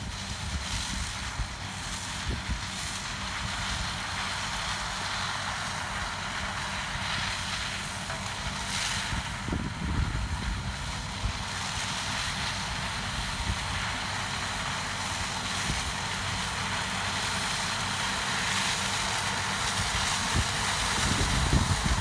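Broussard 223 double-row wholestalk sugarcane harvester cutting cane at a distance, a steady mechanical drone, with wind buffeting the microphone. It grows a little louder near the end as the harvester comes closer.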